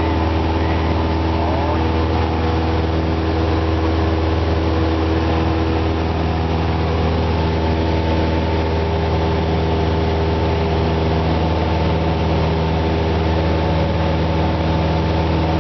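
Cessna 172's piston engine and propeller droning at a steady, unchanging pitch in flight, heard from inside the cabin.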